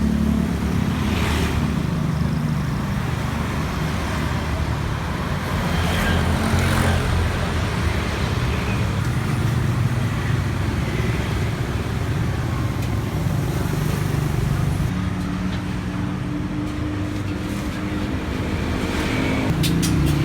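Steady low rumble of road traffic and running engines, with a few short sharp clinks about a second in, around six to seven seconds in, and again near the end.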